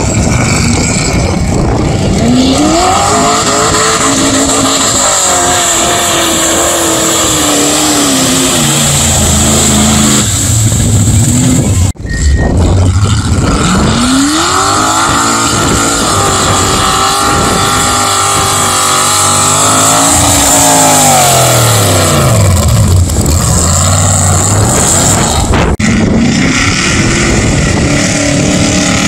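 Mud bog truck's engine at full throttle, pitch climbing as the truck charges into the mud pit and falling away as it bogs down or lets off. This happens twice, with an abrupt cut between the runs.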